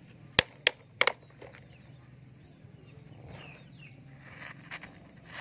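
About four sharp clicks in the first second or so, then faint bird chirps over a low steady hum.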